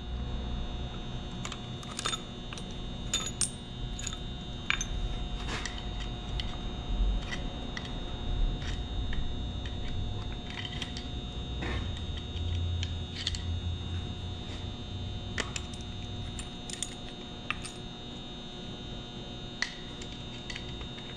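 Scattered light metallic clicks and clinks of a screwdriver, loose valve guides and valves being worked and set down on a cast-iron Model A Ford engine block, over a steady electrical hum.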